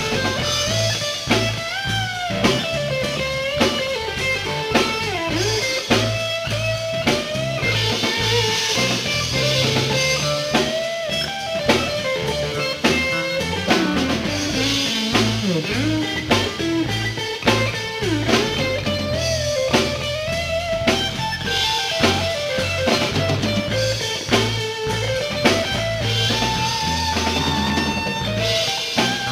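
Live rock band playing an instrumental passage: electric guitar lead with bending notes over bass and drum kit, with no singing.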